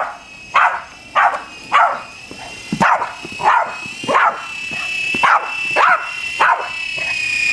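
A Boston Terrier barking over and over, about two barks a second, up at a toy RC helicopter. The helicopter's motor keeps up a steady high whine underneath that grows louder near the end.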